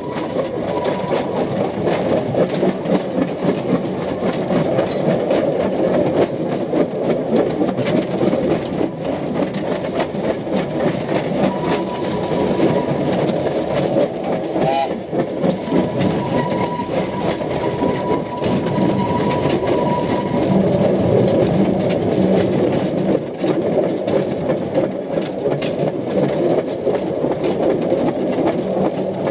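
Narrow-gauge steam train in motion, heard from an open carriage: a steady rattle and clatter of the wooden carriage and its wheels running on the track. A faint thin high whine sounds for several seconds midway, as the train rounds a curve.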